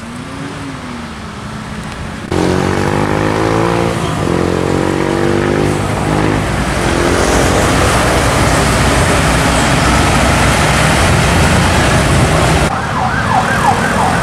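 Intercity coach buses going by with their engines running, and a siren-like horn sounding over them in tones that glide up and down. The sound changes abruptly about two seconds in, and the gliding horn starts again near the end.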